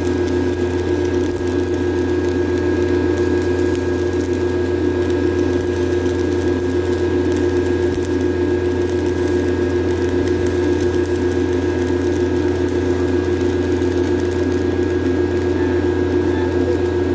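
Engine-driven welding generator running steadily under the load of stick welding, with the hiss and crackle of the welding arc over the engine.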